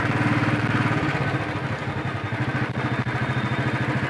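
Royal Enfield Bullet's single-cylinder four-stroke engine running under way, with an even, rapid thump; its note shifts about a second in.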